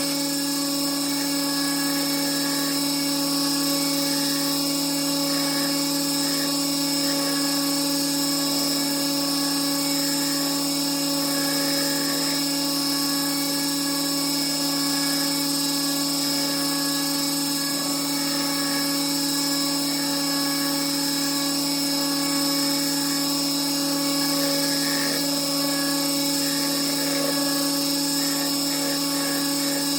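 Belt grinder running steadily on a 220-grit belt, a constant motor hum and whine, as the steel of a forged chef knife blade is ground against the belt.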